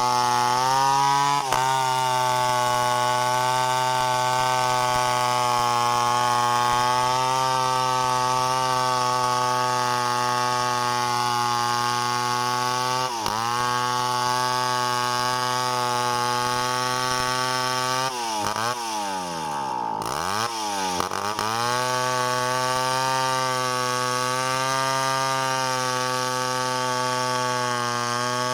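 Two-stroke chainsaw running at steady high revs, with a brief dip in speed about halfway through and, about two-thirds of the way in, revs falling sharply and climbing back.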